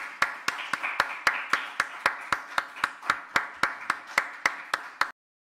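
Small audience applauding at the end of a talk, one nearby pair of hands clapping at about four claps a second over the others; it cuts off suddenly about five seconds in.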